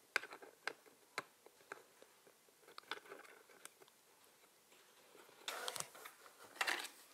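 Light clicks and taps of small plastic pieces being handled and set onto a plastic Minnie Mouse restaurant playset, spaced out at first, with a short busier patch of clicking and rustling near the end.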